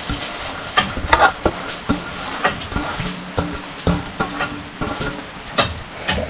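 Steel plate and steel bowl clinking and scraping as a hand wipes mashed filling off the plate into the bowl and squishes it together with chopped onions: a string of short knocks and scrapes.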